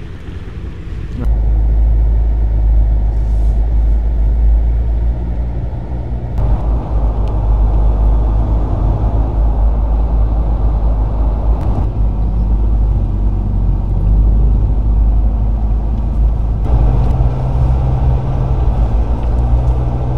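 Ford Ranger pickup on the move: a steady low engine and road rumble, with sudden changes in its tone about a second in, about six seconds in, and near the end.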